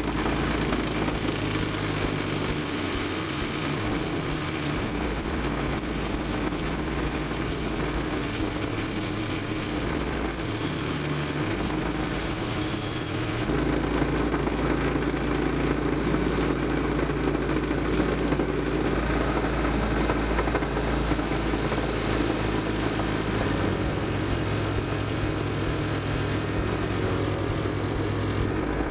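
Bench grinder with a wire wheel running steadily, a low motor hum under a scratchy hiss that swells and fades as small metal parts are pressed against the spinning wire brush.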